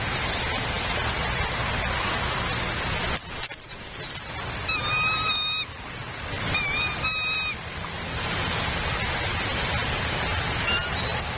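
Steady rain falling, a constant hiss. Two short calls, each with stacked overtones, come through the rain near the middle, and a few quick rising chirps come near the end: bird calls at the nest.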